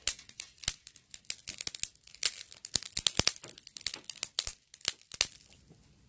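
Salt sprinkled over a charcoal grill, the grains crackling and popping sharply on the hot coals in quick irregular pops that die away about five seconds in.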